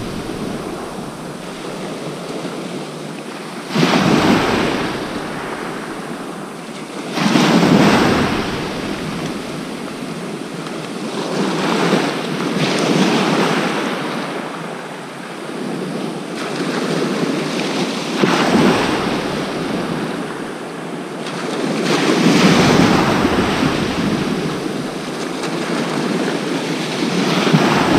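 Sea surf breaking on the beach, wave after wave: a steady wash that swells into a louder crash every few seconds, some waves hitting suddenly.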